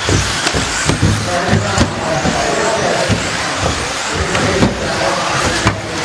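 1/10 scale electric 4WD off-road RC buggies racing, giving a steady noisy hiss of motors and tyres, with several sharp knocks as cars land from jumps on the wooden ramps and the track.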